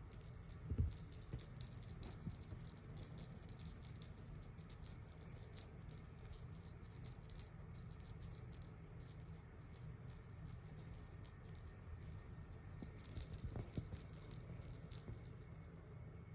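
A jingling cat teaser toy being shaken, with metallic jingles in quick, irregular bursts that stop just before the end. There is a soft thump about a second in.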